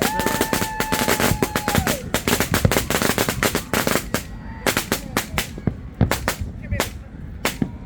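Firecrackers exploding in a dense, rapid crackle of sharp bangs that thins after about four seconds into separate loud pops. A held, whistle-like high tone sounds for about two seconds at the start.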